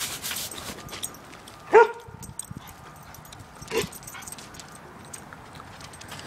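Norwegian Elkhound giving two short, sharp barks about two seconds apart, the first much louder.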